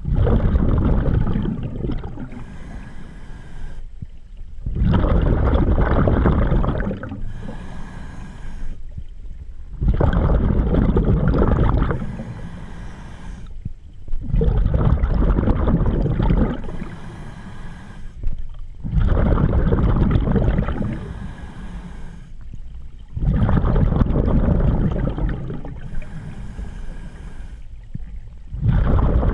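Scuba diver's own breathing through a regulator, heard from a head-mounted camera underwater: a rumbling rush of exhaled bubbles lasting about two seconds, seven times at about four-and-a-half-second intervals, with quieter stretches between.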